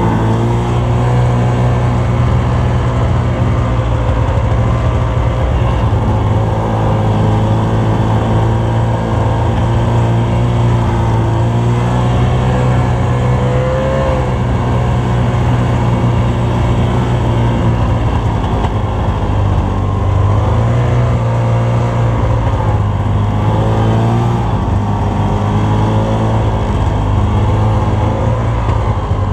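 Snowmobile engine running under throttle while ploughing through deep, unpacked snow, its pitch rising and falling a few times as the throttle is worked.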